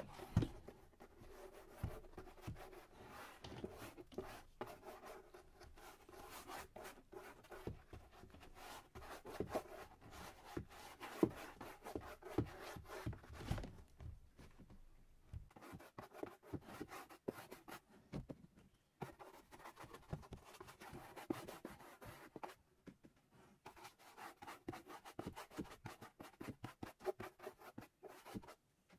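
Irregular hand-worked scraping and rubbing strokes on a hard surface, in short runs with brief pauses.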